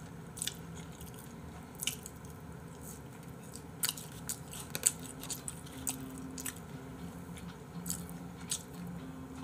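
A person chewing french fries close to the microphone, with scattered soft mouth clicks and smacks.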